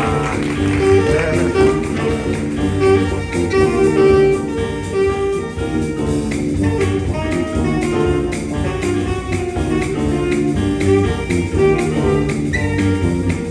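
A band playing live, with a steady beat and sustained melodic notes over a strong bass line.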